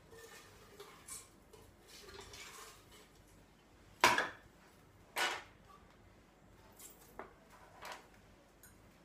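Metal lab equipment handled on a bench: a few light clinks and two louder metallic clanks about a second apart near the middle, as the lid of a stainless steel canister is lifted and handled.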